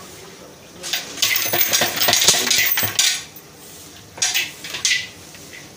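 Metal clattering and scraping as a large metal cooking pot (degh) is tipped and emptied of boiled rice, a dense stretch of about two seconds starting about a second in, then two short clanks near the end.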